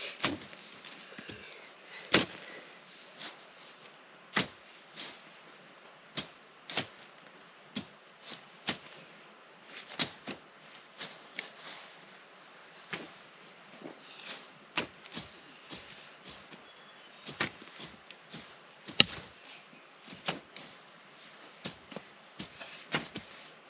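Irregular dull strikes of a hand hoe digging into field soil, one every second or two, with a few sharper hits, over a steady high-pitched insect trill.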